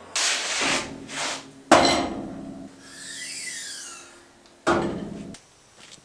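Two quick whooshes, then two sharp metal clanks that each ring on, with a wavering metallic shimmer between them; the second clank cuts off abruptly.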